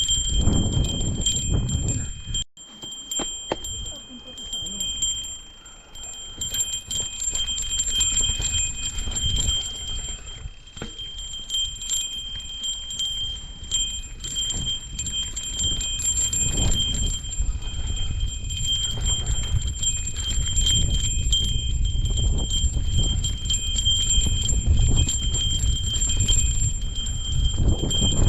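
A small bell jingling without pause over scuffing footsteps and rumbling handling noise as bikes are pushed uphill on foot.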